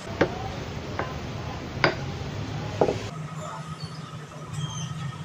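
Four light clinks, about a second apart, over a steady low background hum.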